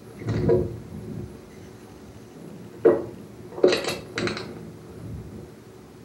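Small bird bathing in shallow water, its wings beating the surface: a flurry of splashing about half a second in, then a sharp splash near three seconds and two more short bursts of splashing and fluttering a second later.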